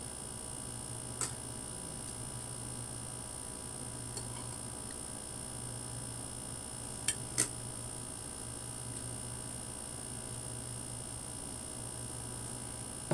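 Steady low hum and hiss of background noise, broken by a few short sharp clicks: one about a second in, a faint one about four seconds in, and two close together about seven seconds in.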